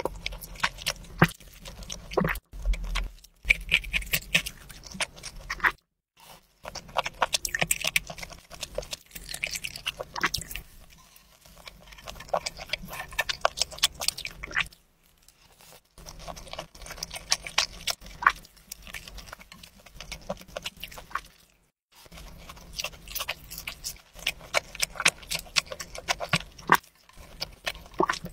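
Close-miked ASMR eating: wet, smacking chewing of spicy webfoot octopus, beef and rice, with dense clusters of sharp clicks, broken by a few brief silences.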